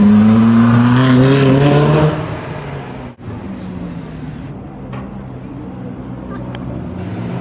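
Ferrari 458 Spider's V8 revving up under acceleration, its note climbing in pitch for about two seconds and then easing off. After an abrupt cut about three seconds in, a Mercedes SL65 AMG Black Series V12 runs at low revs with a steadier, quieter note.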